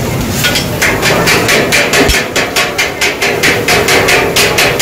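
Metal spatulas striking an iron tawa griddle in a fast, steady rhythm of sharp clangs, about four to five a second.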